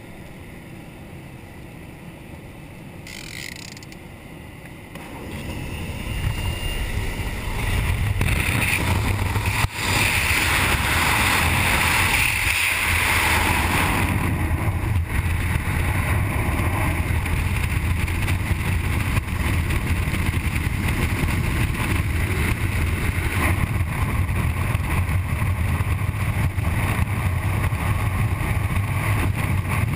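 Inside the cabin of a Pilatus Porter jump plane the engine's steady drone is muffled. A few seconds in it swells into a loud rush of engine noise and propeller blast as the jumpers go out. From about halfway on, a loud steady roar of freefall wind sweeps across the helmet camera's microphone.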